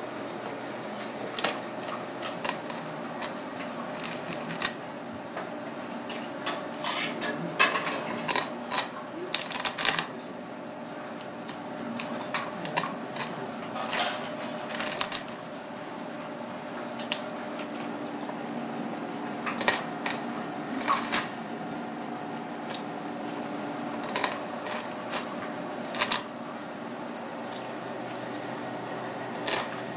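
A wooden rolling pin is rolled and pressed over snow crab legs on a wooden cutting board to squeeze out the meat. It makes irregular clicks, cracks and taps of shell and wood, some in quick clusters, over a steady background hum.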